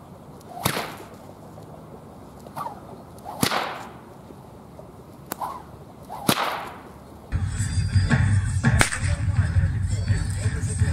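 Cossack harapnyk whip cracking: three sharp cracks about three seconds apart, each preceded by a softer swish of the swing, the tip breaking the sound barrier. About seven seconds in, the sound changes to a louder recording with a steady low rumble under several more whip cracks.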